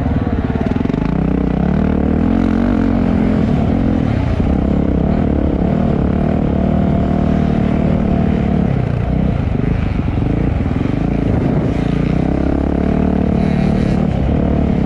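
Motocross bike engine running hard during a race, its pitch rising and falling as it revs through the gears.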